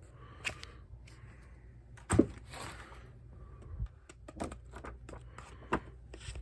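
A magazine being handled: a thump about two seconds in, then a second of paper rustling, with scattered light knocks and clicks.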